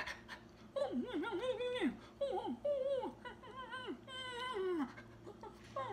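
A man's voice imitating a dog: a quick run of short, high whines and whimpers, most of them sliding down in pitch.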